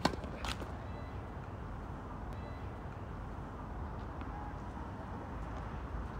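Tennis racket striking the ball on a serve: a sharp pock right at the start and another knock about half a second later. After that only faint, scattered ball sounds over a steady low background rumble.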